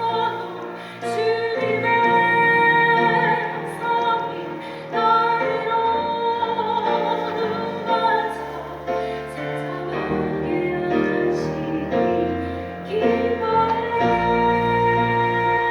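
Church choir singing with piano accompaniment, the voices holding long notes with vibrato.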